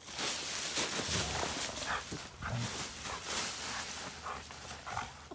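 A German Shepherd pounces and digs through a pile of dry autumn leaves, making a loud, continuous rustling and crunching, with a few short sounds from the dog mixed in.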